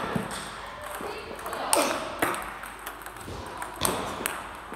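Table tennis ball being struck by rackets and bouncing on the table in a backhand rally: a run of sharp, irregularly spaced clicks that ring on briefly in a large hall, with voices in the background.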